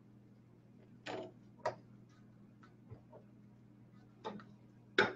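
A metal spoon knocking and scraping against a stainless-steel pressure cooker pot as pieces of roast are lifted out: a handful of separate clinks, the loudest near the end.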